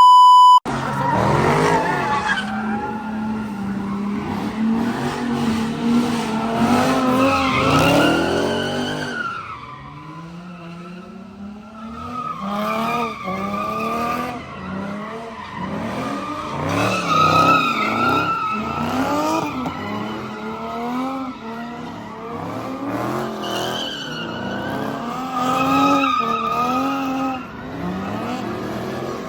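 Dodge Charger Scat Pack's 392 HEMI V8 revving hard, its pitch climbing and falling back again and again through the gears. A short, loud beep comes at the very start.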